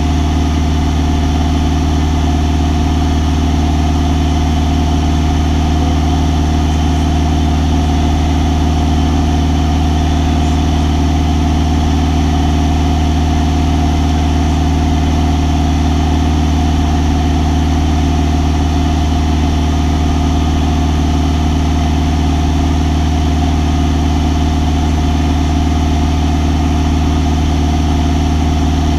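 Single-engine propeller plane's engine and propeller droning steadily in cruise flight, heard from inside the cabin, with a strong low hum and no change in pitch or power.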